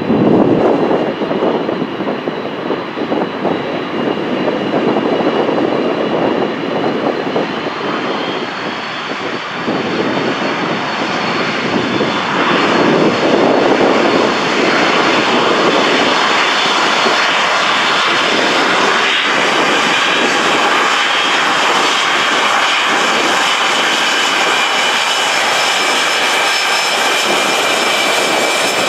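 Boeing 747-400F freighter taxiing close by: its four jet engines at taxi thrust give a steady high whine over a rushing roar. The sound grows louder around the middle as the aircraft draws near, then holds.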